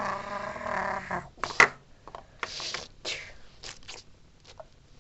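A held, pitched voice-like sound cuts off about a second in. It is followed by a few scattered clicks and short scrapes, like small wooden toys being handled.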